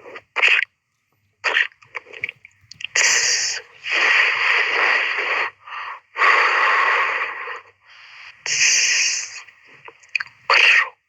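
A person making breathy, hissing vocal noises: a few short sharp bursts, then several long hisses of one to two seconds each, then short bursts again near the end.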